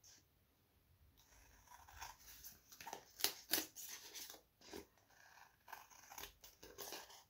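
Scissors snipping in short, irregular cuts, trimming paper strips flush along the edge of a card. The strips are stuck down with double-sided tape, which leaves the blades tacky. Faint, starting about a second in.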